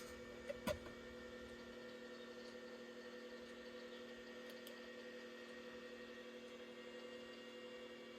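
Steady, quiet hum of a running Macintosh LC II computer, with several fixed tones over a faint hiss, while Microsoft Excel 4.0 loads. Two short clicks sound a little over half a second in.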